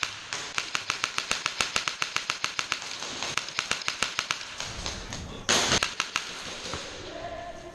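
Airsoft rifle firing on full auto: a long, rapid, even stream of sharp shots that stops about four and a half seconds in. About a second later comes a single louder sudden bang.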